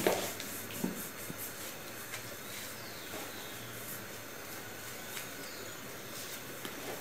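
Bread rolls being torn apart by hand into a plastic tub: faint crackles and rustles of the crust and crumb. Two soft knocks in the first second, the first the loudest sound.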